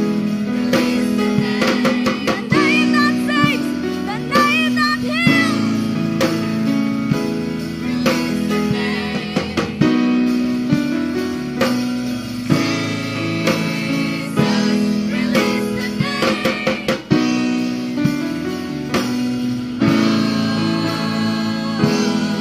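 Worship song played by a band with drum kit and guitar, with voices singing the melody in stretches.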